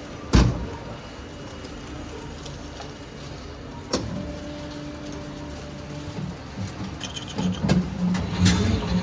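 Self-service automatic bread slicer (MHS): a sharp thump as its clear lid comes down just after the start, a click about four seconds in, then the motor starts and the blade frame runs with a steady low hum from about seven and a half seconds, slicing the loaf.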